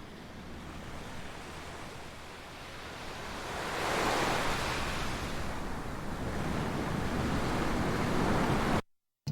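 Ocean surf washing in a steady rush that swells about four seconds in and holds, then cuts off suddenly near the end.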